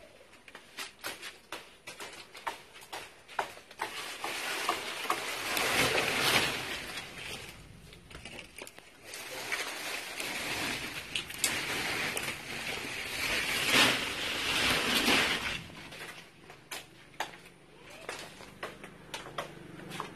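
Foliage and branches rustling in swells, three times, with many sharp clicks and snaps of twigs, as a tree is being cut back.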